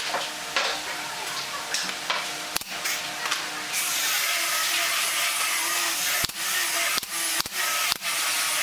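Pneumatic brad nailer firing four sharp shots roughly half a second apart over a steady hiss that starts about four seconds in, with a few lighter clicks before it.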